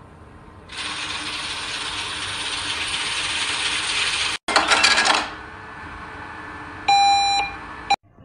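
Money sound effects: a steady rushing noise for about three and a half seconds, then a clatter of coins, and a ringing cash-register chime near the end.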